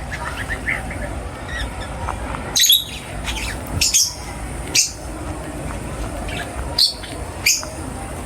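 Birds calling: soft chirps at first, then five loud, short, shrill squawks spaced about a second apart, over a steady low background noise.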